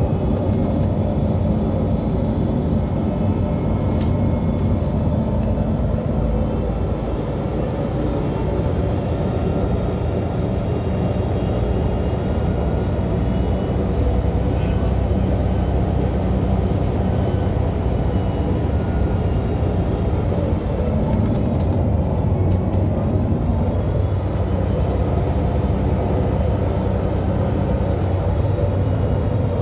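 Transperth bus TP1230 running with a loud, steady low rumble and a droning engine hum.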